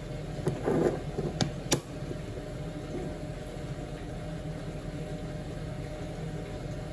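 A steady low machine hum, with a few sharp clicks in the first two seconds.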